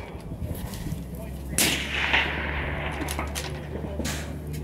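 Precision rifle shot about a second and a half in: a sharp crack followed by a trailing echo. A second, fainter sharp report comes about four seconds in.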